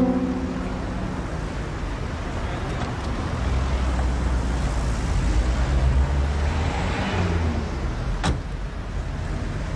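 A car engine running amid street traffic, with a low rumble that swells in the middle. Then a car door shuts with a single sharp bang near the end.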